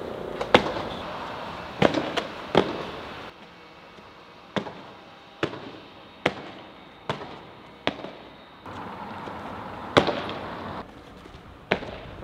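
Sneakers slapping and stamping on pavement as a tricker lands flips and kicks: about a dozen sharp, irregularly spaced impacts, a few in quick succession, the loudest near the start and about ten seconds in.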